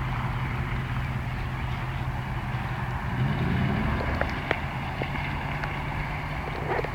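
1993 Jeep Grand Cherokee's 5.2-litre V8 running steadily as the Jeep drives off over sand and gravel, revving up about three seconds in. A few sharp clicks follow.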